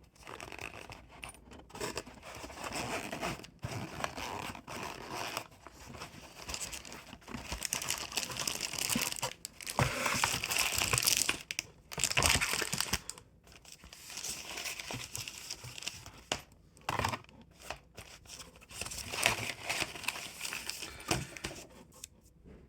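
Plastic packaging crinkling and rustling, with bits of tearing and small clicks, as a multimeter kit is unpacked from its box. It comes in irregular handfuls, louder for a few seconds about halfway through.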